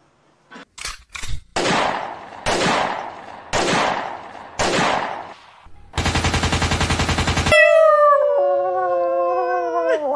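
A cat hissing in four sharp bursts, then a cat's loud cry: a harsh, rapidly pulsing buzz about six seconds in that turns into a long, wavering yowl falling in pitch.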